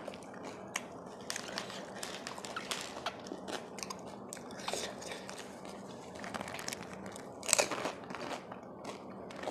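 Crisp fried pani puri shells cracking and crunching in a series of short crackles, the loudest crunch near the end as one is bitten, then chewing.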